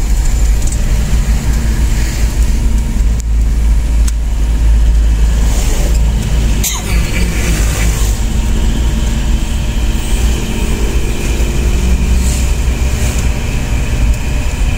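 Engine and road rumble heard from inside the cabin of a moving vehicle, steady throughout, with one sharp click about seven seconds in.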